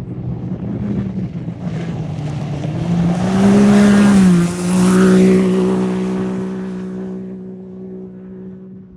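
Off-road race vehicle passing at speed: the engine note builds to its loudest a few seconds in, dips briefly in pitch, then holds steady as it fades away.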